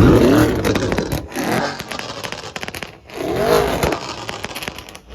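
Car engine revving in short bursts, its pitch rising and falling each time, with many sharp clicks throughout. The revs are broken off abruptly about a second in and again about halfway.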